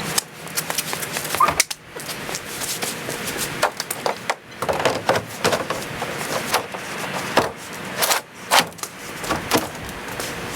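Irregular knocks and clatter of hard objects being handled and set down.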